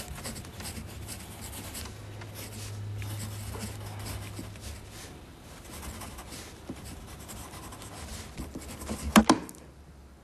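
Graphite pencil scratching across paper in quick, continual strokes as someone writes, over a low steady hum. About nine seconds in, a quick cluster of sharp knocks stands out as the loudest sound.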